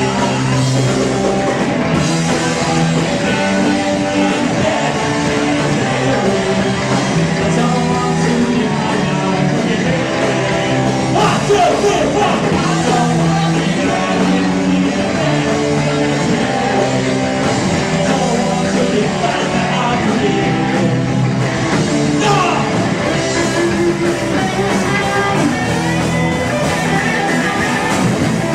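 Live rock band playing a song, with guitar and singing.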